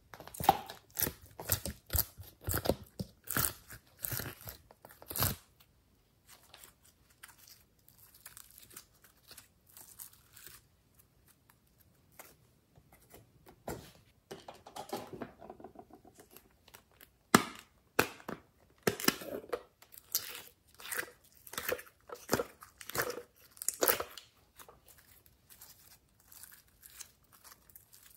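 Glossy slime being worked by hand, making sticky wet pops and clicks as it is picked out of a plastic tray, squished and pulled apart. The clicks come in dense runs over the first few seconds and again in the second half, with quieter handling in between.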